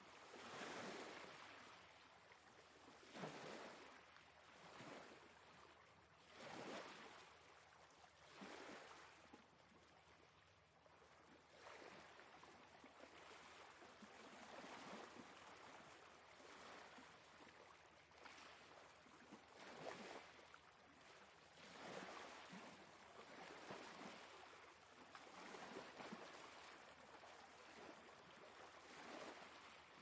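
Gentle sea waves breaking and washing up a sandy beach, heard faintly as surges of surf that rise and fall every few seconds.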